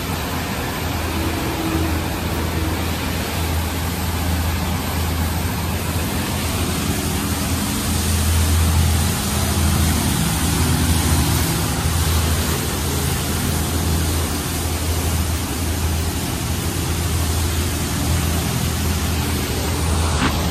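D&S 5000 touchless car wash spraying high-pressure water over a pickup truck: a steady hiss of spray with a low hum underneath that swells and eases.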